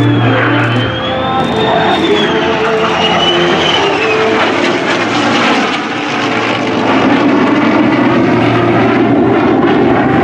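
An F-35A's F135 turbofan and a P-51 Mustang's piston engine flying past together in formation, a mixed jet and propeller roar. The roar gets louder in the second half.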